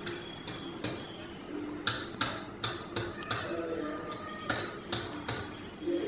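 Claw hammer striking a metal wire grill rack on a tiled floor to bend it: about a dozen sharp metallic taps at an uneven pace, some in quick pairs.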